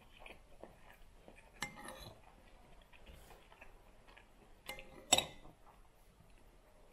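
Cutlery clinking against a dish: one ringing clink about one and a half seconds in, then two more near five seconds, the second of them the loudest, among soft small knocks.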